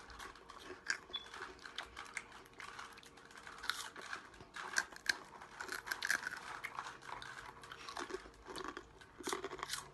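Close-up crunching and chewing of spicy rolled chips, a run of irregular crisp crackles and clicks.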